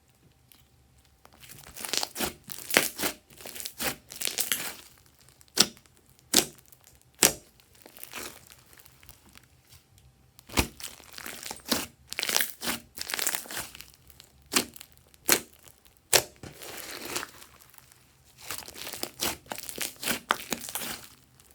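Slime being squeezed, stretched and folded by hand: sharp clicks and pops with crackly, sticky squelching in uneven bursts, one especially loud snap about halfway through.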